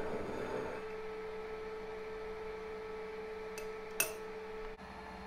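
Small bench lathe motor running with a steady hum while a watch case is worked with abrasive. The rubbing noise drops away under a second in, and a single sharp metal click comes about four seconds in.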